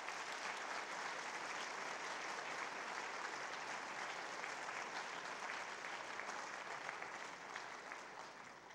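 Audience applauding, steady at first and dying away near the end.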